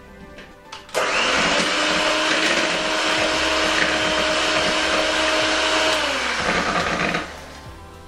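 Handheld electric mixer with twin beaters whisking eggs in a bowl. The motor whirs up about a second in, runs steadily for about five seconds, then winds down and stops near the end.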